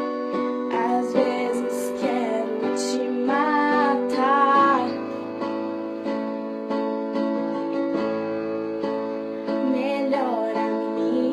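Pop song playing: a strummed plucked-string accompaniment (acoustic guitar or ukulele) holding chords, with a few short wordless vocal phrases from a female singer, about a second in, around three to five seconds in and near the end.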